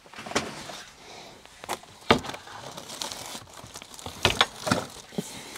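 Handling and rummaging noise: rustling and crinkling with several sharp knocks and clicks as objects are picked up and moved. The sharpest knock comes about two seconds in, and two more follow close together near the end.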